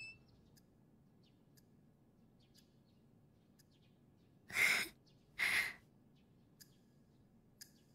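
A clock ticking softly about once a second in a quiet room, with two breathy sounds, a breath in and out like a sigh, a little over halfway through.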